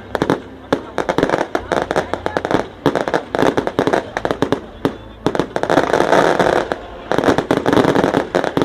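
Fireworks going off in rapid, dense volleys of sharp bangs and crackles, thickening into continuous crackling twice.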